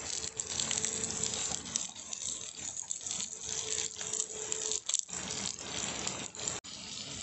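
Halved boiled eggs frying in hot oil in a clay pot over a wood fire: a steady sizzling hiss with small crackles, broken off briefly twice near the end.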